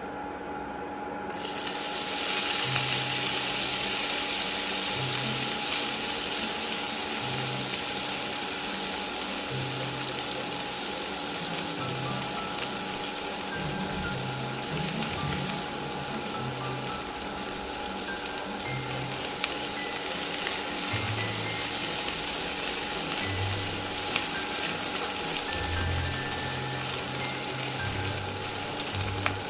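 Food sizzling as it fries in hot oil; the sizzle starts suddenly about a second in and carries on steadily.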